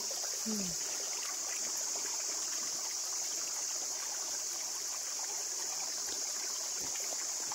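Spring water trickling steadily through a small muddy channel in the grass, a continuous hiss with no breaks.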